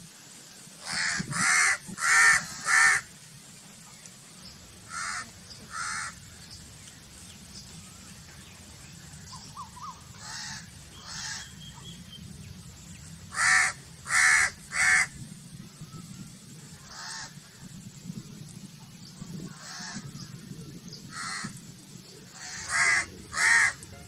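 Crows cawing, the calls coming singly or in quick runs of two to four with pauses of a few seconds between, over a steady low hum.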